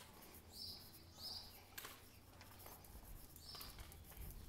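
Faint short bird chirps, four or five scattered through a quiet street ambience, with a few soft footstep taps on pavement.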